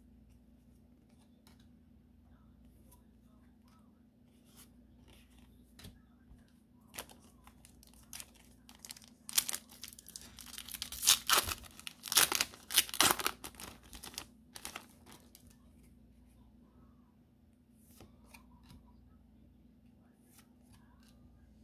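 Foil wrapper of a Pokémon 151 booster pack being torn open and crinkled: a cluster of loud crackling rips about halfway through, with light clicks of wrapper and card handling before and after.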